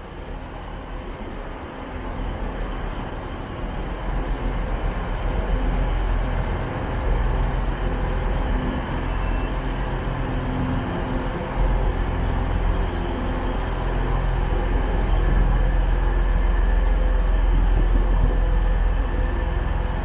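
TransPennine Express Class 185 diesel multiple unit pulling into the platform, its diesel engines running with a steady low rumble that grows louder as the train draws alongside.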